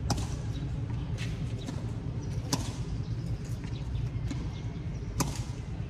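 Tennis ball being hit by rackets and bouncing on the court during play: a few sharp pops, the loudest about halfway through and near the end, over a steady low rumble.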